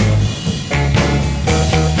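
Rock music with guitar over bass and drums.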